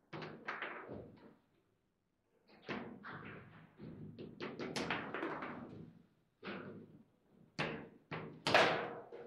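Table football in play: an irregular run of sharp plastic knocks and clacks as the ball is struck by the rod figures and rebounds off the table, loudest near the end.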